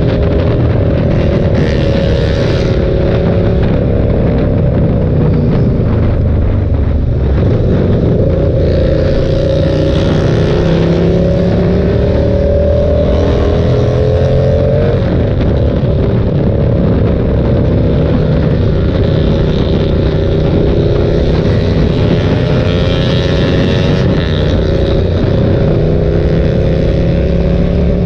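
KTM 1290 Super Duke's big V-twin engine running at highway speed under the rider, its pitch slowly rising and falling with the throttle and stepping once as the revs drop and pick up again. Heavy wind rumble on the bike-mounted microphone runs under it.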